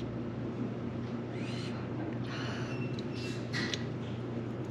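Three short, airy slurps as noodles are sucked up with chopsticks, over a steady low hum in the room.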